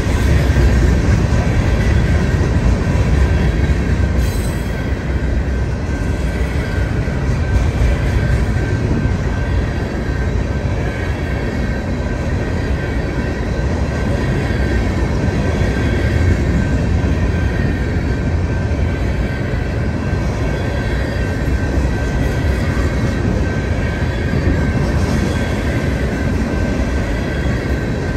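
Long freight train of covered hopper cars rolling past: a steady loud rumble and rattle of wheels and cars, with a faint steady high tone over it.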